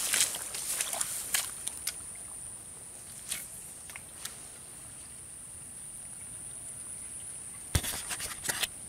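A steady, high-pitched insect drone. Scattered rustles and clicks fall in the first two seconds, and a sharp knock with a burst of handling rustle comes near the end as something brushes over the camera.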